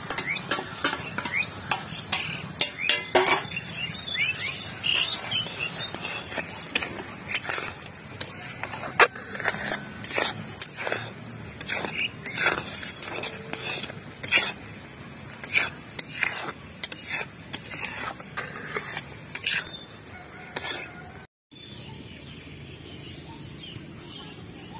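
Metal spatula knocking and scraping against a steel wok while jujube pickle is stirred in its thick bubbling syrup: many irregular clinks. Near the end the knocking stops, leaving only a quieter steady hiss.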